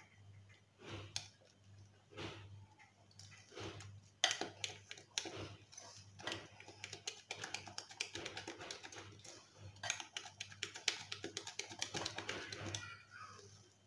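Cake batter being beaten by hand in a glass bowl: a rapid run of ticks and clinks as the utensil strikes the glass, sparse at first and fast and dense from about four seconds in. A faint steady hum runs underneath.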